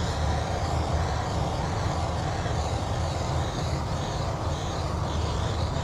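Handheld torch flame burning steadily, an even rushing noise strongest low down, as it heats the applied repair material on the fender to set it.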